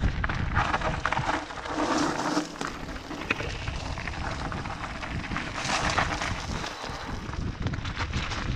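Mountain bike riding fast down a loose gravel trail: wind buffeting the microphone with a low rumble, while the tyres crunch and the bike rattles over stones in many small clicks. Two stretches of louder hiss come about a second in and again past the middle.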